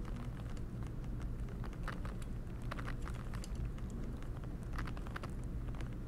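Scattered faint metal clicks and ticks as a small shouldered screw is turned in by hand through a lever into the frame of a Monroe mechanical calculator, over a steady low hum.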